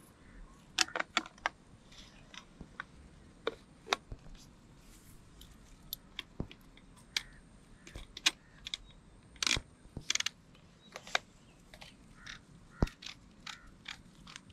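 Parts of a Sarsilmaz SA-X700 12-gauge semi-automatic shotgun being assembled by hand, with the fore-end and barrel fitted over the magazine tube. Irregular sharp clicks and clacks of metal and synthetic parts, a cluster about a second in and the loudest around the tenth second.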